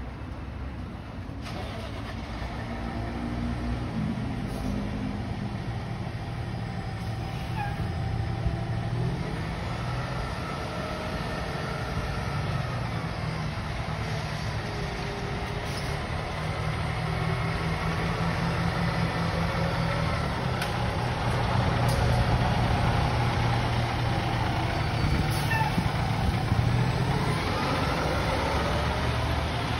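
Fire engine's diesel engine running as it pulls out of the station bay and drives past, growing louder as it approaches.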